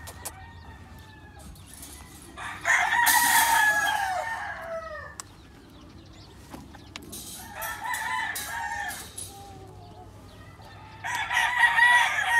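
Game roosters crowing three times: a loud crow about two and a half seconds in, a fainter one from farther off around the middle, and another loud crow near the end.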